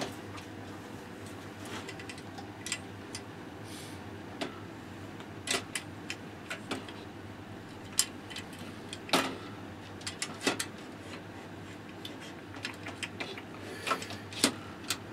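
Scattered clicks and knocks of aluminium fence parts being handled and fitted: an Incra Wonder Fence unit being slid onto T-slot nuts in a router table fence. The knocks come every second or so and bunch together near the end, over a low steady hum.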